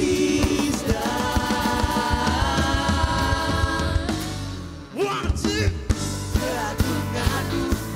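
Live Christian worship song: two male vocalists singing over a band with a steady drum beat. The music dips briefly about five seconds in, then the beat comes back.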